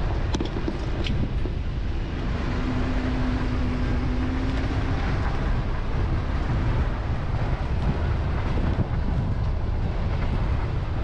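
A vehicle on the move: a steady low rumble of engine and road noise.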